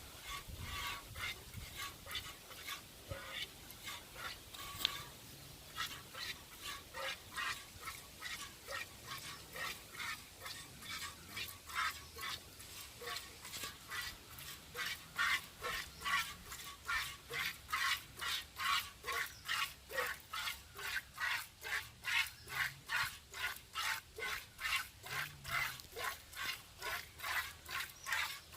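Hand-milking: squirts of milk hissing into a pail in a steady rhythm, about two a second at first and quickening to nearly three a second in the second half.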